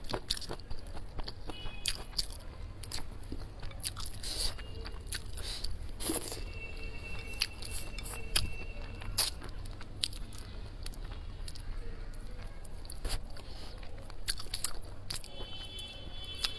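A person eating close to the microphone: irregular crunchy bites and chewing clicks. Faint background music runs under it.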